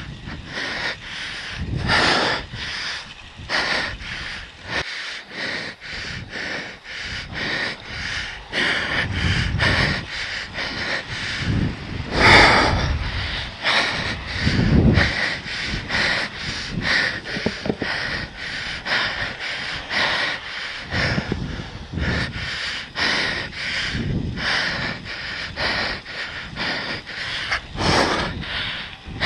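A cyclist breathing hard close to the microphone, a quick, steady run of breaths with the effort of pedalling.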